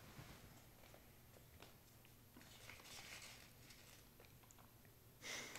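Near silence: room tone with a faint steady low hum and a few faint ticks. A soft noise rises near the end.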